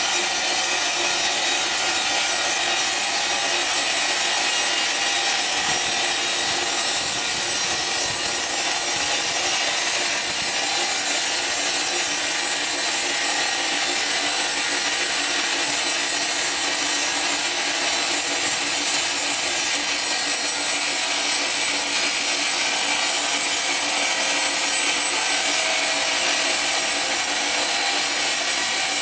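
Sawing machine cutting through ironwood: a steady, unbroken hiss of blade in wood over the machine's running hum.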